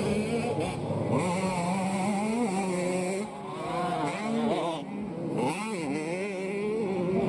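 85 cc two-stroke motocross bikes revving hard, the engine pitch rising and falling again and again with throttle and gear changes. The sound drops abruptly twice, about three and five seconds in.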